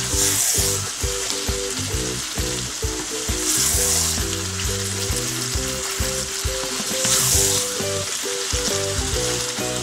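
Kababs in thick masala sizzling in oil in a karahi on high heat while being stirred with a wooden spoon. This is the bhuna stage of the dish. The sizzle swells every few seconds with the stirring, over background music with held notes.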